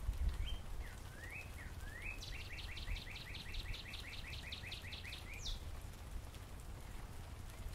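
Northern cardinal singing: a few rising slurred whistles, then a fast run of about fifteen downslurred notes, ending with one high sweeping note.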